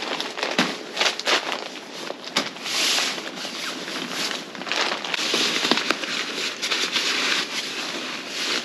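Rustling and crinkling of a thick-material Umbrauto truck-bed air mattress being rolled up deflated and pushed into its carrying bag, with irregular crackles and scuffs throughout.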